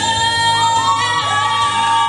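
A woman singing a long held note over a karaoke backing track, sliding up into a higher sustained note about halfway through.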